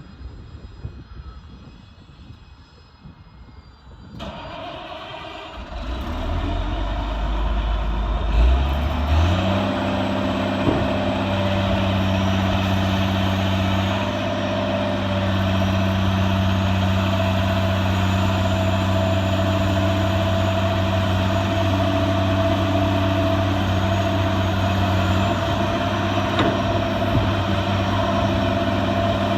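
Caterpillar 345CL hydraulic excavator's diesel engine being started: after a few quiet seconds it cranks with a low rumble, catches about nine seconds in, and settles into a steady idle.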